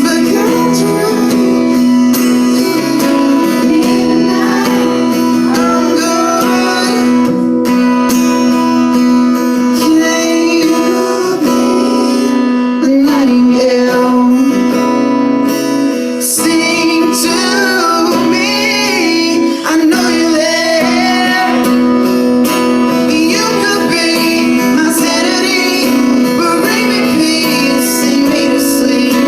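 Acoustic guitar being played, with a voice singing over it.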